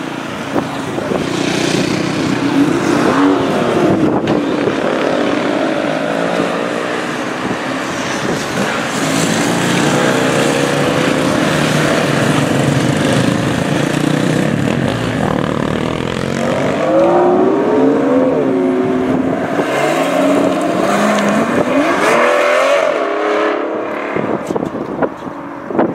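Aston Martin DB11 engine running as the car pulls out and accelerates away, its note climbing and dropping again several times as it goes up through the gears.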